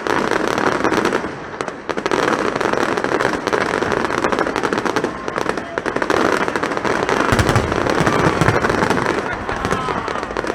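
Fireworks display: a dense run of crackling reports with heavy, deep booms about seven seconds in.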